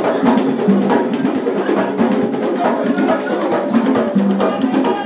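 Music with a busy drum and percussion rhythm under sustained pitched parts.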